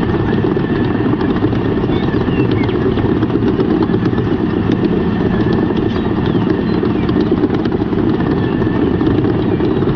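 A vehicle motor running steadily with a dense low rumble.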